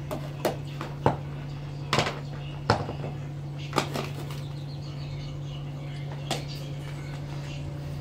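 Irregular knocks and clacks of a plastic bowl against a steel pot and a metal tray as flour is scooped and handled, about eight in all, most in the first four seconds. A steady low hum runs underneath.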